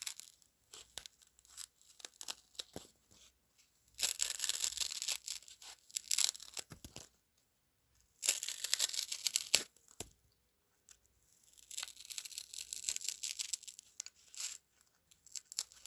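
Crisp, scratchy rustling in several bursts of one to three seconds, with short pauses and scattered light ticks between them.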